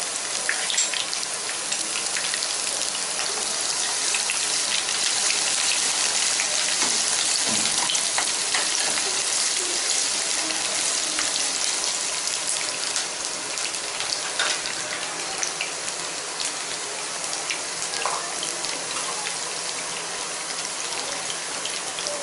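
Sliced onions frying in hot oil in a kadhai: a steady sizzle with many small pops and crackles, easing slightly over the last several seconds.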